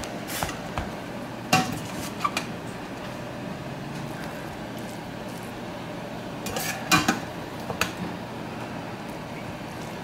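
A metal spoon clinking and scraping against a saucepan and an aluminium foil baking pan: a handful of scattered clinks, the loudest about a second and a half in and a cluster around seven seconds in.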